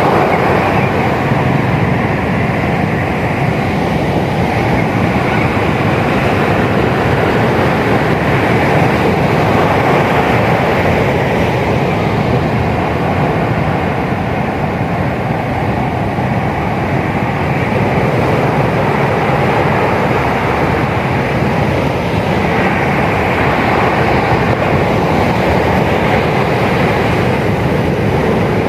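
Loud, steady roar of ocean surf breaking on a beach, swelling and easing slowly over several seconds.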